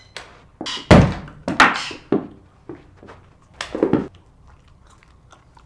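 Apples thrown around a small room, hitting the walls and floor: a run of about five hard thuds, the last and loudest pair around four seconds in.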